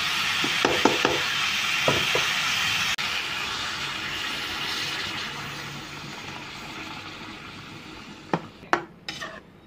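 Chicken and curry powder sizzling in a hot electric pan, with a few metal spatula scrapes and knocks in the first two seconds. About three seconds in, water is poured in from a bottle and the sizzle drops and fades away, with a couple of clicks near the end.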